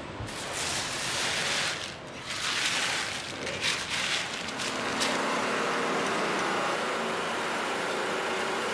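Gem-workshop noise: irregular rustling and rattling bursts for the first few seconds, then a steady mechanical whir with a faint low hum from about five seconds in.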